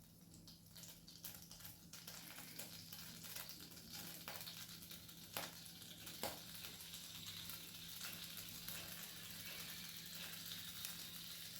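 Coconut oil sizzling faintly in a hot pan on the stove, the hiss building after about two seconds, with a few light clicks.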